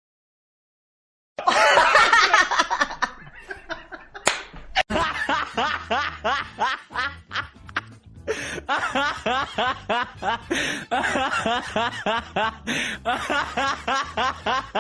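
Meme laughing sound effect: a snickering laugh made of many short, quickly repeated syllables. It starts after about a second and a half of silence.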